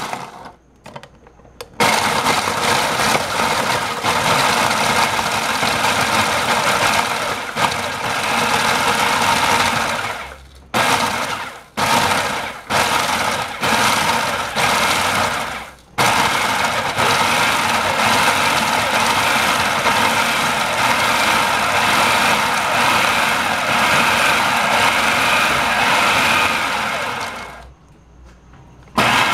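Food processor motor and blade chopping whole Oreo cookies into crumbs: a couple of short pulses, a steady run of about eight seconds, about five short pulses, then another long steady run that stops near the end.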